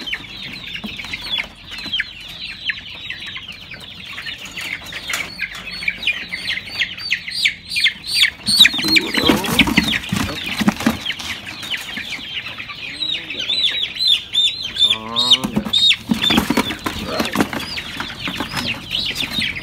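Many baby chicks peeping in brooder cages: a constant chorus of short, high, falling peeps. About halfway through come a few louder knocks and rustles of a cardboard box being handled.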